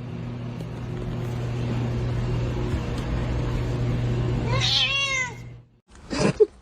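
A cat meows once, a single rising-then-falling call near the end, over a steady low hum.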